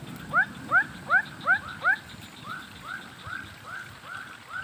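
An animal calling: a quick series of short rising notes, two to three a second. The notes are loud over the first two seconds, then fainter ones carry on at the same pace.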